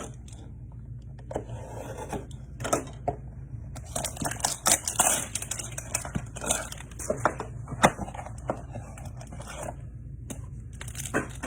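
Trading-card packaging and cards being handled: irregular rustling and scraping of cardboard and plastic, with many small sharp clicks, busiest in the middle, over a steady low hum.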